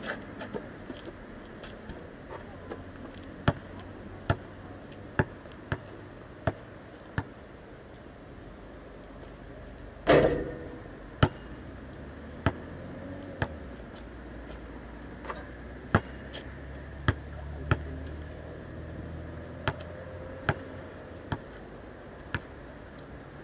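A basketball bouncing on an asphalt court: a run of sharp, evenly spaced bounces, then about ten seconds in a loud bang with a short metallic ring as the ball hits the hoop, followed by more bounces.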